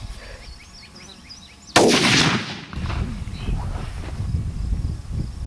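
A single loud rifle shot about two seconds in, its report rolling away over about a second. Another shot begins right at the very end.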